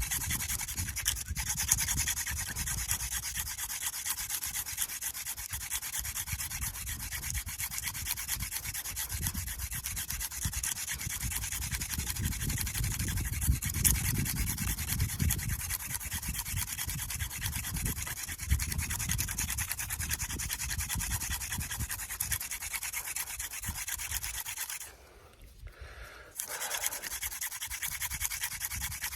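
Hand drill friction fire: a mullein stalk spindle spun between the palms, its tip grinding into an artist's conk fungus hearth, making a steady, rapid rubbing. It breaks off for about a second and a half near the end, then resumes.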